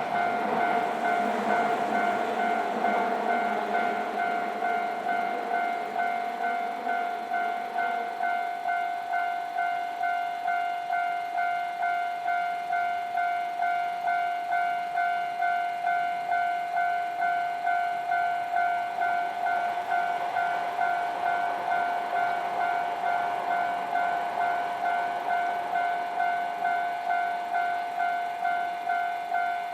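Level-crossing alarm ringing: an electronic bell pulsing a steady tone at an even pace. Over the first several seconds the rumble of a passing Nankai Railway train fades away beneath it.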